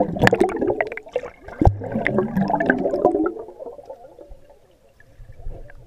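Swimming-pool water heard from underwater: muffled bubbling and gurgling with many sharp clicks and knocks, loudest for the first three seconds, then fading to a quieter stretch with a little bubbling near the end.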